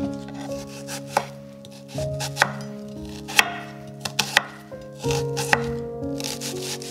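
Chef's knife cutting through a peeled onion and striking a wooden chopping board: a series of sharp knocks, roughly one a second, over background music.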